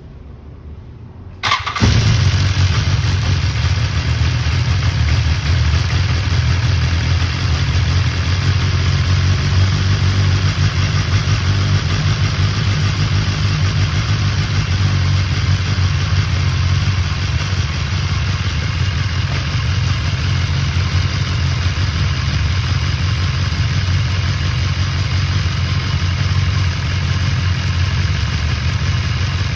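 BMW S1000XR's inline-four engine starting about a second and a half in, then idling steadily, with a rattle that the owner takes for the cam chain.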